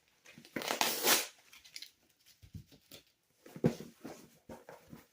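Packing tape being torn and cut off a cardboard shipping box: a ripping hiss about half a second in, then scattered crackling, scraping and knocks, the loudest a thump about three and a half seconds in.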